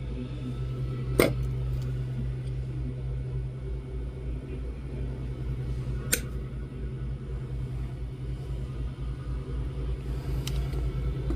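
Steady low mechanical hum from workbench equipment, with two sharp clicks, one about a second in and one about six seconds in.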